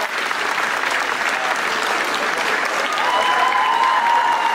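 Audience applauding steadily as the dancers bow. A long, high, held tone sounds over the clapping from about three seconds in.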